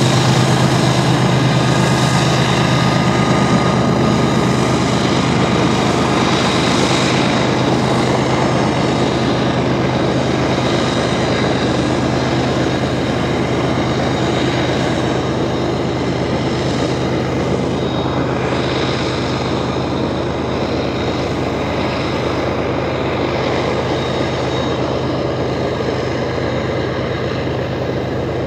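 BNSF diesel-electric locomotives running under heavy load, pulling a loaded coal train up a mountain grade: a steady low engine drone with rail and car noise, slowly fading.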